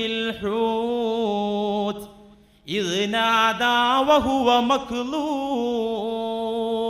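A man chanting a Quranic verse in Arabic in melodic recitation style. He sings two long phrases of held, ornamented notes, with a short breath pause about two seconds in.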